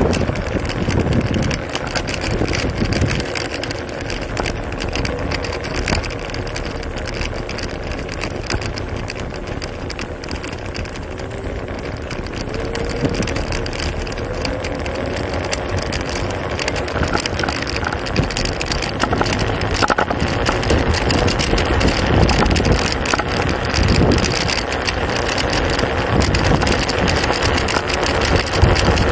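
Xiaomi M365 electric scooter riding over brick paving: a steady rumble and rattle from the wheels and deck, with wind on the microphone.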